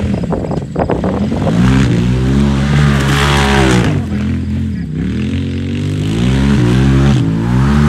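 Side-by-side UTV engine revving hard and falling back, about twice, as it spins and slides on grass and dirt. A spray of hiss joins it about three seconds in.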